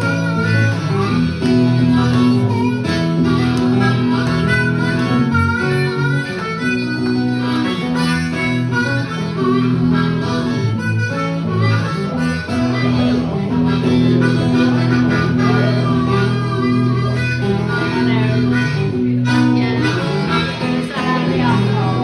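Instrumental break in a live acoustic blues song: harmonica solo over acoustic guitar accompaniment.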